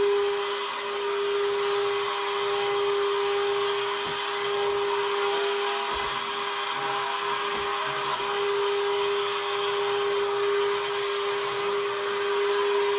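Vacuum cleaner running steadily: a constant motor whine with a rush of air.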